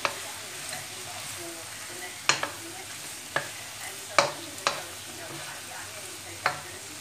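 Vegetables sizzling steadily in a nonstick wok as they are stir-fried with a wooden spatula. The spatula knocks sharply against the pan about seven times at irregular intervals.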